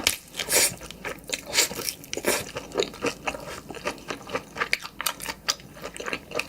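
A person chewing and biting into soy-sauce-marinated raw shrimp: many short crunches in quick succession, mixed with chewing.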